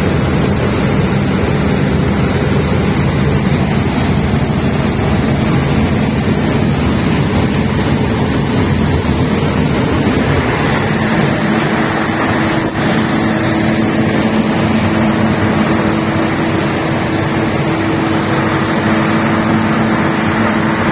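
Large 500 kVA diesel generator running loud and steady. A high whine falls away in the first half, and about halfway through the deep rumble eases into a steadier hum.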